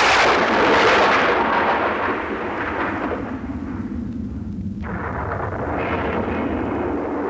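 A sudden loud crash like a thunderclap that fades over about four seconds. A steady, lower noise takes over about five seconds in.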